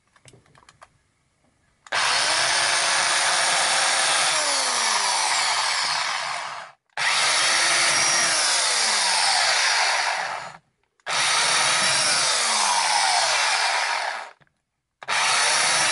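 Freshly repaired corded electric drill drilling into a wooden strip, now working again. It runs in four bursts of a few seconds each, starting about two seconds in, with short stops between; the motor tone falls during each run, and the last begins near the end.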